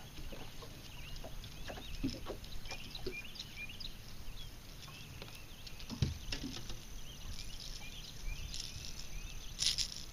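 Many short, high chirping calls from wildlife along the lake shore, scattered throughout. There is a single dull knock about six seconds in and a brief hiss near the end.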